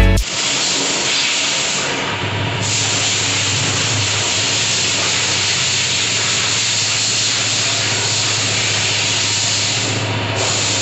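A steady, loud hiss, like air or spray rushing, with a low steady hum beneath it.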